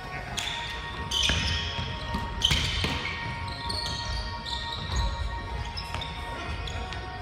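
Basketball being played on a wooden gym court: sneakers squeak sharply on the floor and the ball bounces, in short scattered strokes.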